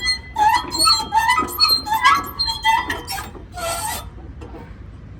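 Music with short pitched notes and percussive hits, dropping away to a much quieter background about four seconds in.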